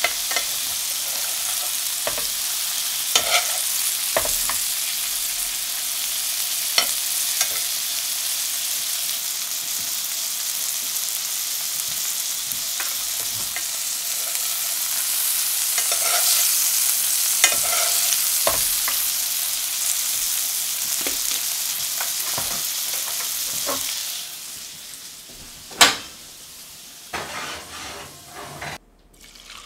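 Pork chops sizzling in foaming butter in a cast-iron skillet, with a steady hiss and the light clinks of a metal spoon basting them against the pan. About six seconds before the end the sizzle falls away, followed by a single sharp click.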